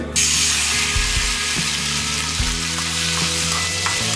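Canned fish in tomato sauce sizzling as it is stir-fried in a hot metal wok. The sizzle sets in abruptly at the very start and holds steady, with a few light spatula scrapes near the end.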